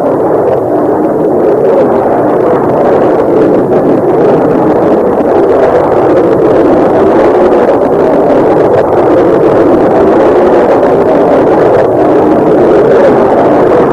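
Aircraft engines in flight: a loud, steady rushing drone without a clear pitch.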